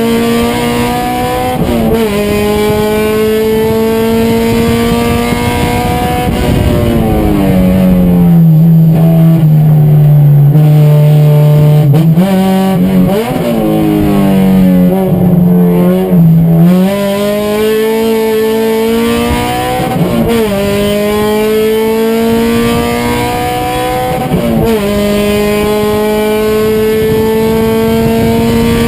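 Race car engine heard on board, loud throughout. It climbs slowly in revs through the gears, with quick gear changes. In the middle stretch the revs drop lower and rise and fall for several seconds, as under braking and through corners, before it pulls up through the gears again.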